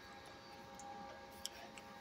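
Quiet room tone: a faint steady electrical hum, with one soft click about one and a half seconds in.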